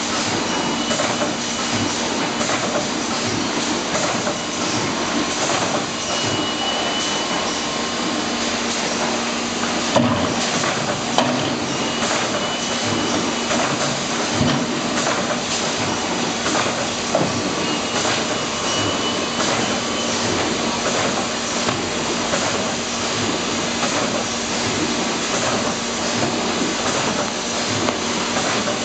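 Bubble-film envelope making line running: steady machine noise with a dense, fast clatter over a constant hum and hiss, and a couple of louder knocks about ten seconds in.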